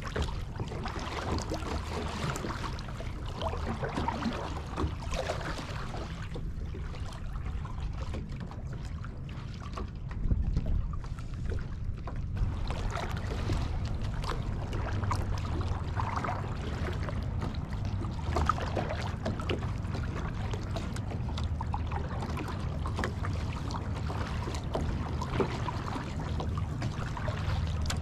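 Kayak paddle strokes: the blades dipping into the water and dripping, in scattered splashes, over a steady low rumble of wind on the microphone.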